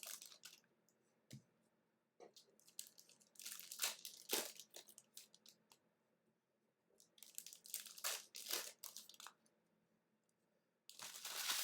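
Trading-card pack wrappers crinkling and tearing as packs are opened and cards handled, in three short bouts with quiet gaps between.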